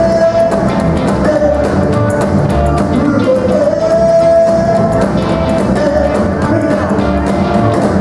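Live rock-and-roll band playing: a man singing long held notes over a drum kit, electric guitars, upright bass and keyboard.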